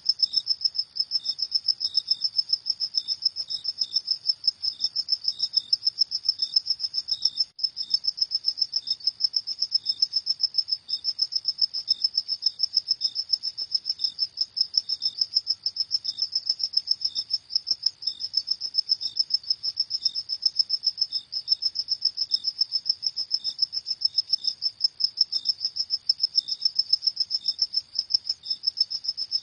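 Crickets chirping: a fast, even, high-pitched pulsing trill that never lets up, with softer separate chirps at a slightly lower pitch every so often.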